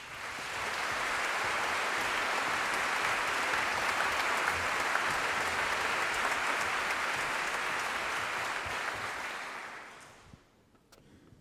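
Audience applauding to welcome a performer onto the stage. The applause builds within the first second, holds steady, and dies away about ten seconds in.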